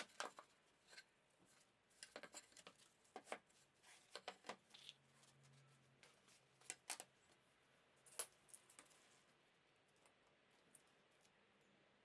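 Faint, scattered sharp clicks and light taps in irregular clusters, as of small objects or tools being handled, with near silence between them.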